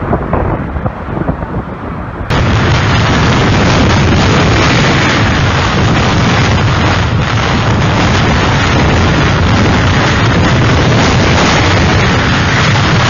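Hurricane-force wind buffeting the microphone in uneven gusts. About two seconds in it switches abruptly to a much louder, dense, unbroken storm-wind noise that overloads the recording.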